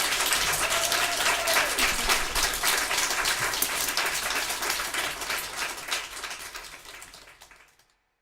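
Small audience applauding with dense, irregular claps, fading out near the end.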